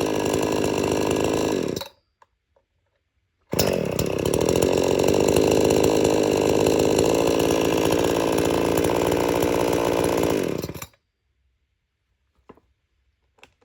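Chainsaw engine running at high speed. It cuts out about two seconds in, comes back abruptly at full speed a second and a half later, and runs steadily until near the end, then stops.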